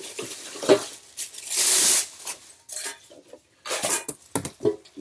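Plastic packaging rustling and crinkling, with irregular light knocks and clatters from unpacked parts being handled; the loudest stretch of rustling comes about one and a half to two seconds in.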